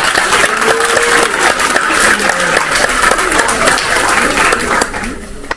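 A room of people applauding, many hands clapping together; the clapping cuts off abruptly near the end.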